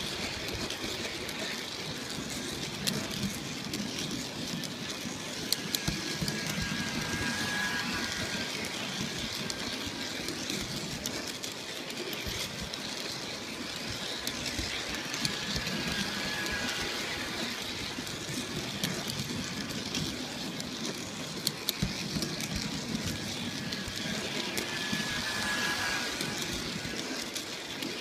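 G scale model train running along its track, heard from a camera riding on the train: a steady rumble of motor and wheels with occasional sharp clicks. A faint high squeal comes and goes about every eight seconds.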